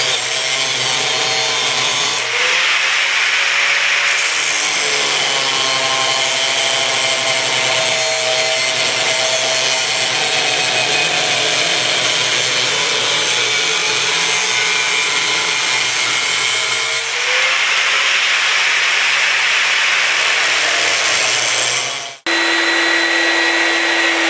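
Angle grinder with a thin abrasive cut-off disc cutting through steel water pipe: a steady, loud grinding hiss whose pitch shifts as the disc bites into the metal. Near the end it cuts off abruptly and a belt sander is heard running with a steady hum.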